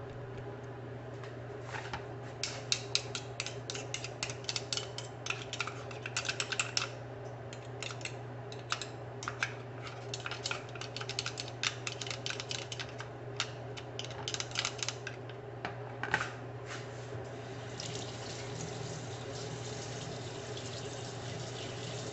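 Kitchen handling sounds: a long irregular run of quick clicks and taps over a steady low hum, giving way in the last few seconds to a steady hiss like running water.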